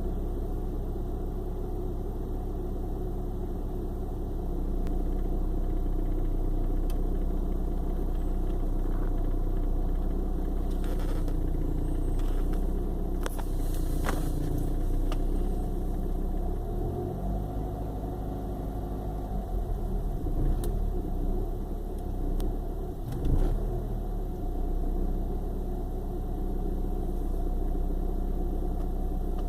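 1995 BMW 318i four-cylinder engine idling roughly and sputtering as if misfiring, even though the spark plugs are new. The idle wavers in pitch and level about two-thirds of the way through.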